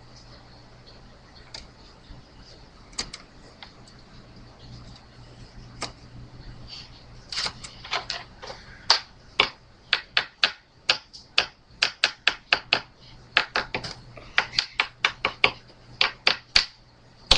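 Typing on a computer keyboard: a few scattered keystrokes at first, then quick runs of key clicks, several a second, from about halfway in.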